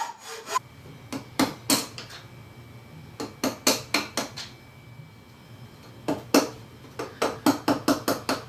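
Wood chisel cutting out waste from a mortise in a hardwood plane body: short, crisp cutting strokes, a few a second, in three runs with pauses between.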